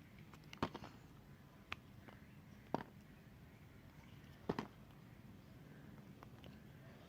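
Blade cutting white soap, making four sharp, faint cuts about a second apart, with a few lighter ticks between them.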